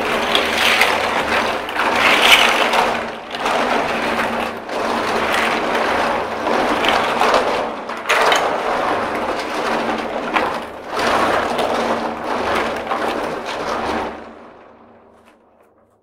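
Toy building blocks being swirled and rubbed together in water: a dense clattering that surges and eases unevenly, then dies away near the end.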